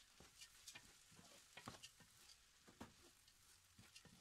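Spatula stirring soaked basmati rice through the masala in a pot: faint, irregular scrapes and clicks against the pot, over a light sizzle.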